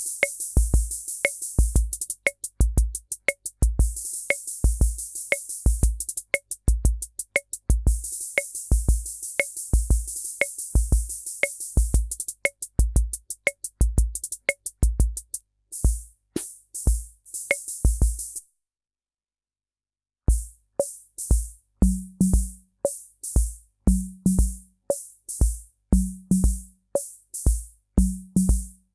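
Korg SR-120 Mini Pops analog rhythm machine playing a preset pattern of bass drum, sharp clicks and long hissing cymbal strokes. It stops about two-thirds of the way in. After a short silence a different preset starts, with bass drum, short hi-hat ticks and a pitched low drum every other beat.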